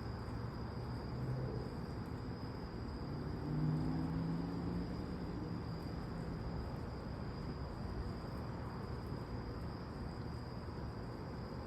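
A steady chorus of night insects, heard as a thin unbroken high tone over a low background hiss. About three seconds in, a low hum with a few overtones swells up and fades out again over the next few seconds.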